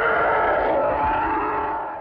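Parasaurolophus call sound effect: a long, steady pitched call that fades out near the end.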